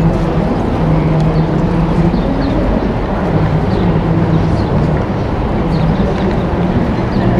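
Steady low engine-like hum over a rushing background noise, with faint short high chirps now and then.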